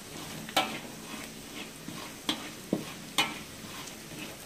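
Spatula scraping and knocking against a wok while stirring minced shallots, garlic and candlenut frying in a little oil, with a soft steady sizzle; four sharp scrapes stand out. The aromatics are being sautéed until fragrant.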